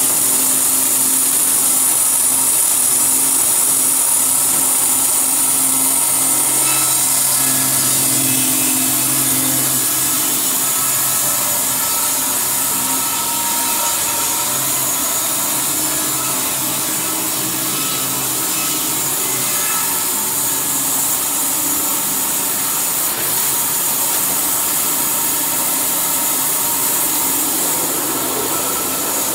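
Sawmill saw head running steadily as it cuts along a log, a loud, even hiss of blade through wood with a few steady machine tones underneath.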